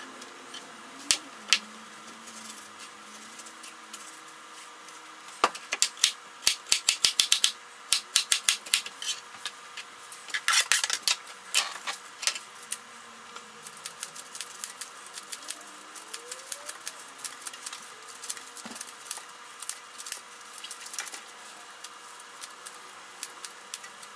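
Chef's knife cutting pineapple on a plastic cutting board, sped up: sharp clicks and taps, with a quick run about six seconds in and a dense cluster around the middle. After that come scattered clicks and snips as kitchen scissors trim the pineapple crown.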